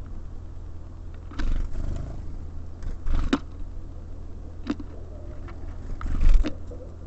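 Small birds at a feeder: a few sharp pecking taps and two longer fluttering, rustling bursts, the loudest near the end, over a steady low hum.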